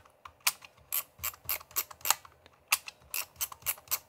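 Thumbwheel film advance of a Dubblefilm Show 35mm plastic point-and-shoot being wound, its ratchet clicking in quick runs with a short pause midway. This is the winding that brings the frame counter from S to the first frame after loading.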